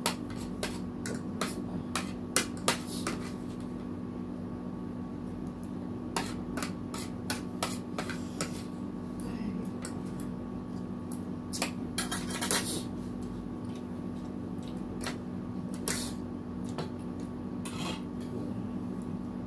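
Metal spoon and fork clinking and scraping against a plate and bowl while eating, in scattered sharp clicks with a longer scrape about twelve seconds in. A steady air-conditioner hum runs underneath.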